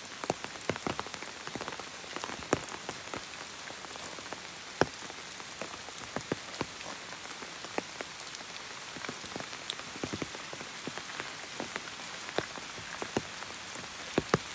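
Rain falling, a steady hiss with many irregular sharp taps of individual drops striking close by.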